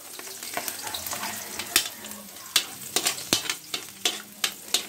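Chopped garlic sizzling in hot oil in a wok while a metal spatula stirs it, knocking and scraping against the wok in quick, irregular clicks.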